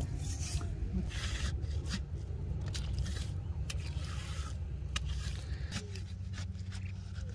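Hands and a stick digging and scraping through wet mud: a run of short, irregular scrapes and rubs over a steady low rumble.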